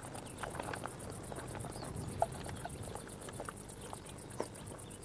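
Wood fire of kindling splinters crackling as it catches, with scattered small pops and snaps over a low steady rumble.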